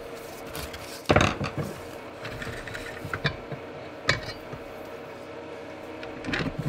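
Metal clinks and clunks as a 4L60E automatic transmission's input and reverse drum assembly is worked out of its aluminium case by hand, the loudest knock about a second in and a few lighter ones after, over a steady hum.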